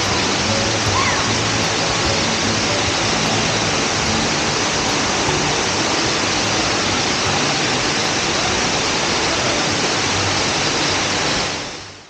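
Steady rush of a waterfall, water pouring and cascading over rock, fading out near the end.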